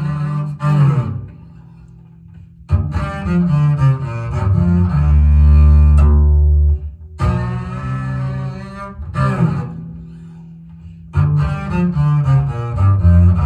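Jazz double bass recording played back over a hi-fi system's loudspeakers. Phrases of deep bass notes come with two brief quieter pauses between them.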